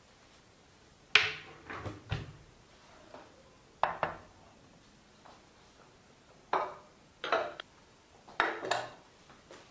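White ceramic bowls and plates clinking as they are set down and stacked on a tabletop: about a dozen short, sharp knocks in clusters of two or three, a few seconds apart.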